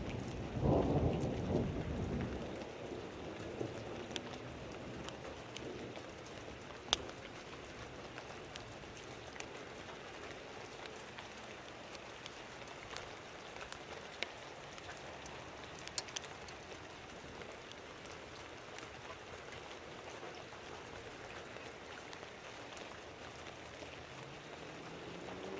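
Steady rain falling, with a thunder rumble dying away over the first two seconds or so. Scattered sharp drip clicks stand out through the rain.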